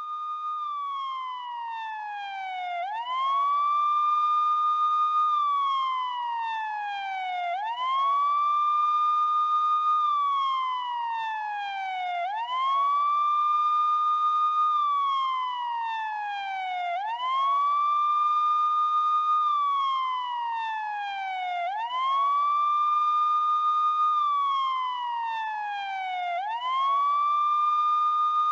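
Police car siren on a slow wail: each cycle sweeps quickly up, holds high for about two seconds, then slides steadily down, repeating about every four to five seconds, six times over. No engine or traffic noise is heard under it.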